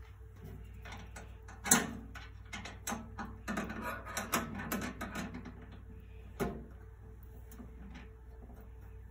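Stamped steel wrench clicking and rattling on nuts and against a sheet-metal panel as its bolts are tightened. There is a sharp clack nearly two seconds in, then a run of quicker clicks and rattles, and a single knock later on.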